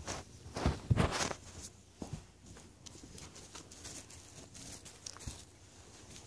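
A puppy scrabbling and shuffling on soft bedding. Fabric rustles with a few light thumps in the first second and a half, then faint scratching.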